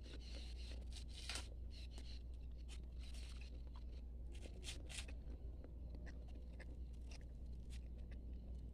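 Large knife cutting and shaving the husk of a coconut: faint, irregular sharp cuts and scrapes every second or so, over a steady low hum.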